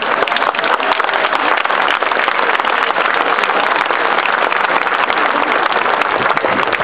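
Large crowd applauding: dense, steady clapping from many hands.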